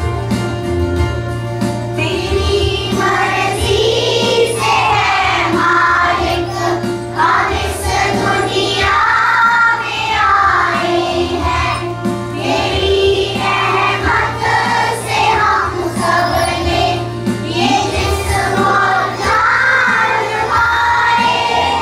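A group of young children singing a prayer song together in unison, with instrumental accompaniment underneath.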